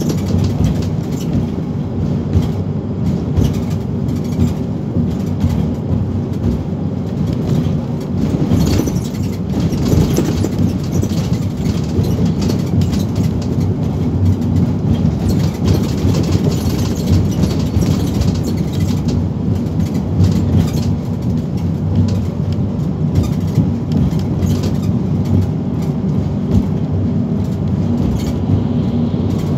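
Van Hool NewA360 city bus cruising at road speed, heard from inside the passenger cabin: a steady low drone of engine and tyres, with scattered light clicks and rattles.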